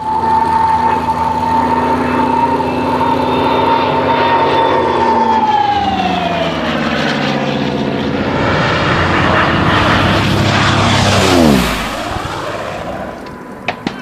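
A propeller aircraft flying past: a loud, steady engine note with a high propeller tone that slides down in pitch as the plane passes. Near the end it peaks in loudness and drops steeply in pitch, then fades, with two sharp cracks just before it ends.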